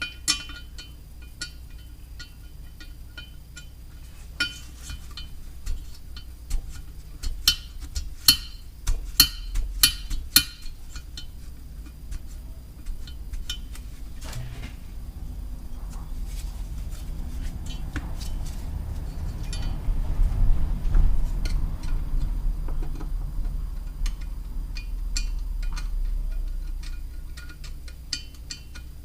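Metal clinks and taps of a cylinder-head valve being slid in and out of its guide and dropped onto its seat, testing whether the carbon-cleaned exhaust valve still sticks. Sharp clicks come in a dense run about four to eleven seconds in, followed by low rumbling handling noise.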